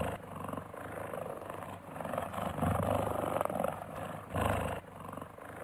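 A big cat growling, rough and noisy, in a few drawn-out swells, the strongest near the end.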